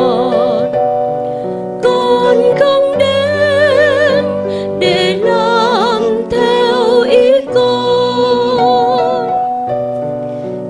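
A hymn sung by a singer with vibrato, in held notes and phrases with short breaks, accompanied by sustained electric keyboard chords.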